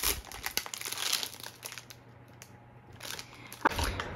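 Clear plastic cellophane wrap crinkling and crackling as it is peeled off a cardboard perfume box. It goes quieter for a moment in the middle, then a few louder knocks come near the end as the box is handled and its top flap opened.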